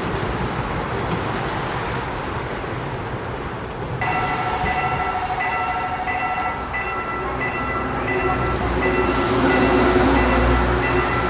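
Railway level-crossing warning bell that starts about four seconds in, a repeating electronic ding about one and a half times a second, over the running noise of a train. A low train rumble grows louder near the end.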